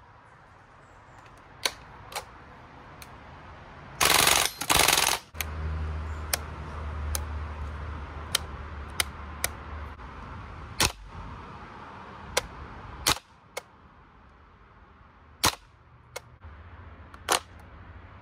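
Umarex/VFC H&K UMP45 Gen 2 gas blowback airsoft gun firing two short full-auto bursts about four seconds in. After that come single sharp clicks: the fire selector being switched and the trigger being dry-pulled, a click every second or two, with a last click near the end as the bolt release is pressed.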